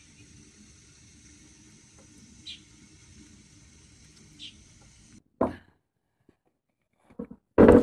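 Long bamboo poles knocking and clattering against one another as they are lifted and dropped: a single knock about five seconds in, then a quick run of knocks near the end, the last the loudest. Before that there is only a faint steady background with two short chirps.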